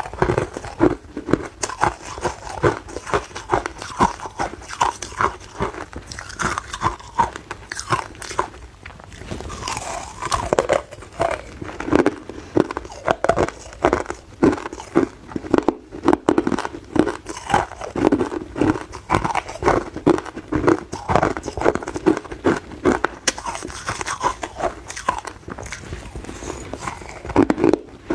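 A person biting and chewing hard ice cubes close to the microphone: a continuous run of sharp, irregular crunches, several a second.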